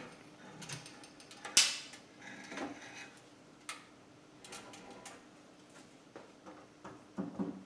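Scattered light clicks, knocks and creaks from a hoisting rig as an electric motor hanging on a rope takes its weight, with one sharp click about one and a half seconds in, over a faint steady hum.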